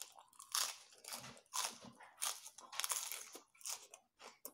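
Crisp lettuce leaf crunching as it is bitten and chewed close to the microphone, in irregular crackly crunches about two a second.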